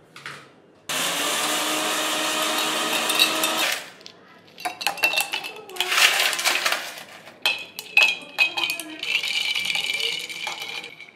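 A steady noise for about three seconds, then ice cubes clinking and knocking into a glass mason jar of tea, followed by a spoon stirring and rattling against the glass with a high ring.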